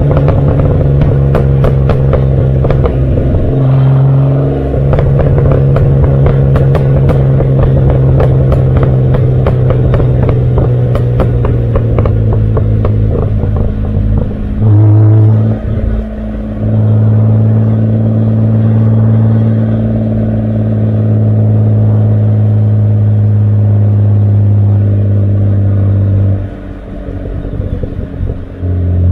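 Exhaust note of a 1971 Opel Commodore A GS's 2.8-litre straight-six, heard right at its twin tailpipes while driving: a steady low note that changes pitch about four seconds in and again around fifteen seconds in, with a short loud burst at the second change. Scattered sharp clicks over the first twelve seconds, and the note falls quieter for about two seconds near the end before picking up again.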